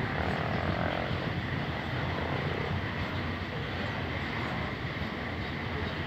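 Long freight train of grain hopper wagons rolling past below, a steady rumble with no let-up.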